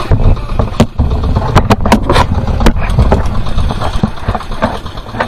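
Outrigger fishing boat's engine running under a loud rumble of sea and water splashing against the hull and outrigger, with several sharp knocks between about one and three seconds in.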